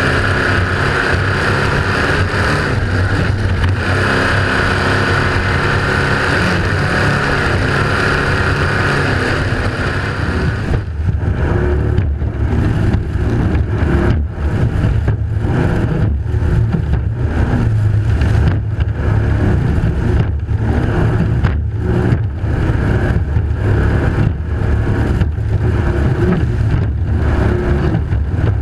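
Offshore racing powerboat under way at speed. For the first ten seconds or so a loud hiss of water and spray covers the engines. Then the engines' deep, steady drone is to the fore, pulsing unevenly as the boat crosses the waves.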